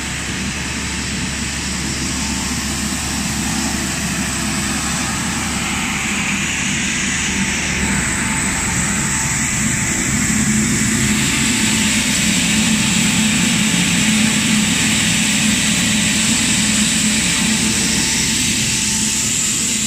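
Steady machinery noise of a running PP/PE plastic recycling pelletizing line: a continuous hum under a strong hiss, slowly getting a little louder.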